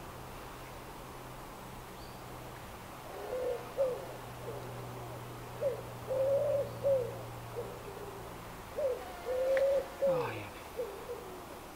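A pigeon cooing: three phrases of several low notes, each with one longer note near the start, repeated about every three seconds.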